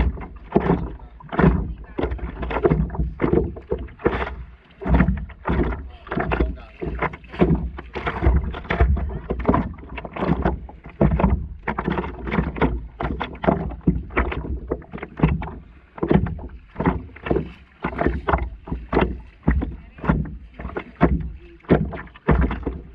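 Small river waves lapping and slapping against the nose of a stand-up paddleboard in quick, irregular splashes, one or two a second, over a low rumble.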